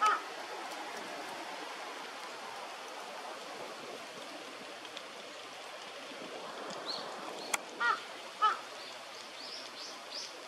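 Large-billed crow giving short, harsh calls: one right at the start, then two about half a second apart near 8 seconds in, over a steady background hiss. A few faint high chirps from smaller birds come near the end.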